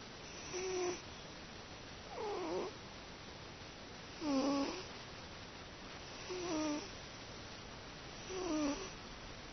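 Domestic cat snoring in its sleep, sounding like an old man's snore: five short snores about two seconds apart, each dipping in pitch.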